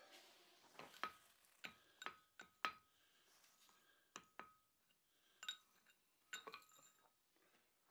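Hand hammer striking a punch held on a glowing-hot steel bar on the anvil, punching the eye: about a dozen sharp metallic clinks in uneven groups of two or three, each with a short ring.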